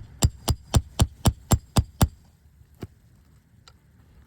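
Roofing hammer striking during nail removal on an asphalt shingle roof: a quick run of about eight sharp blows, roughly four a second, then a single blow about a second later and a faint tap near the end.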